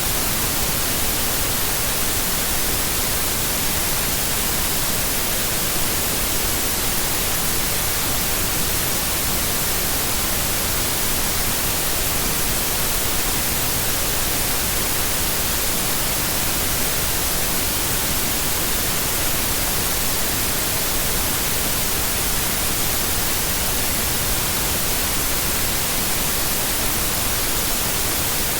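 Steady white noise: an even, unbroken hiss across the whole range, strongest in the treble, with no change in level.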